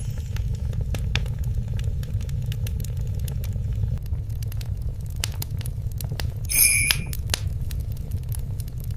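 Wood fire in a fireplace crackling, with a steady low rumble under scattered sharp pops. About six and a half seconds in, a brief high-pitched tone rises above it and is the loudest moment.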